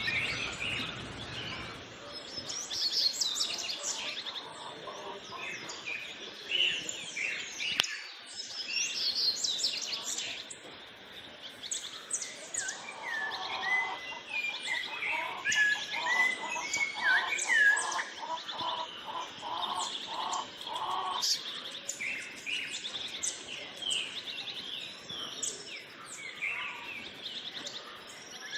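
Several birds singing and calling at once, a busy chorus of high chirps and whistled glides. In the middle stretch a lower note repeats steadily, about twice a second, under the chirping.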